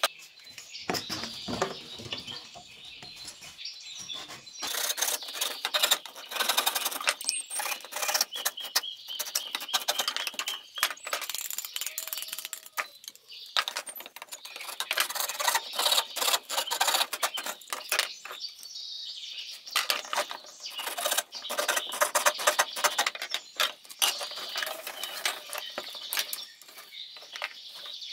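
Rapid, irregular clicking and tapping in bursts, with birds chirping.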